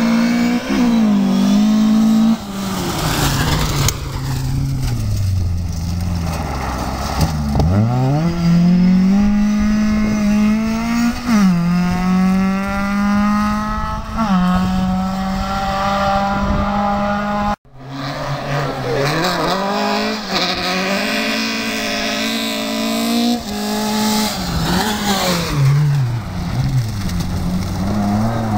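Rally cars driven flat out on a gravel stage, one after the other: each engine revs high, its note climbing through the gears and dropping sharply at each shift or lift as the car passes and pulls away. The sound breaks off abruptly about two-thirds through, and a second car follows with the same rising and falling engine note.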